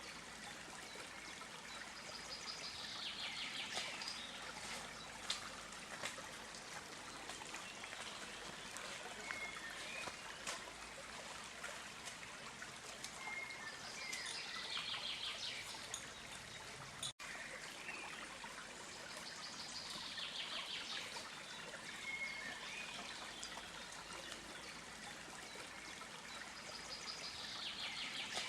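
A small stream trickling and running steadily, with a bird singing a short, repeated phrase several times over it. The sound drops out for an instant about two-thirds of the way through.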